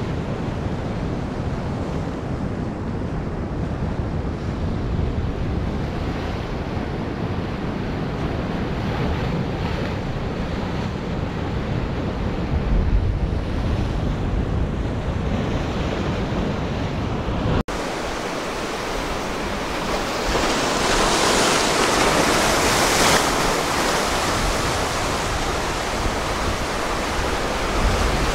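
Ocean surf breaking and washing on a beach, with strong wind rumbling on the microphone. About two-thirds of the way in, the sound breaks off for an instant and comes back with less wind rumble and a louder, hissing wash of surf.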